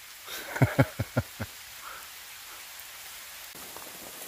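Steady rain falling. About a second in there is a quick run of five short, loud sounds.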